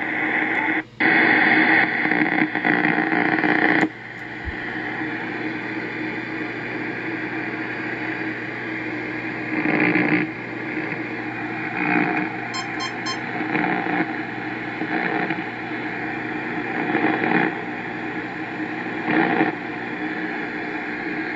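HF amateur radio transceiver receiving in AM mode, its speaker giving a steady hiss of band static. The sound cuts out briefly about a second in, drops in level at about four seconds, and swells louder several times later on.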